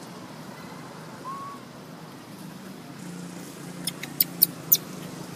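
Four sharp, high-pitched chirps in quick succession about four seconds in, after a single faint short call near the start, over a low steady hum.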